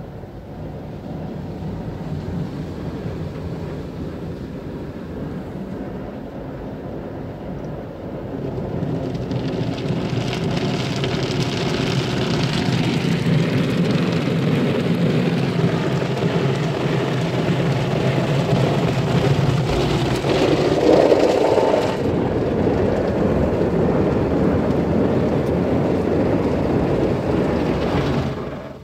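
OPW PDQ Tandem Surfline touchless car wash heard from inside the car: a steady machine hum, joined about nine seconds in by the loud hiss of water spray hitting the car, which cuts off suddenly near the end.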